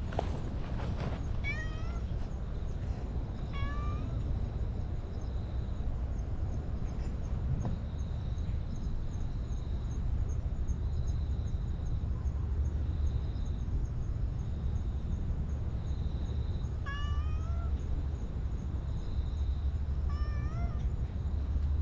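A cat meowing in four short, rising calls: two within the first few seconds and two more near the end, over a steady low rumble.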